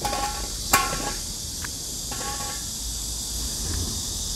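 Steady high-pitched chirring of insects in the grass and trees. A toddler's short voice sounds at the start, with a brief sharp sound about a second in.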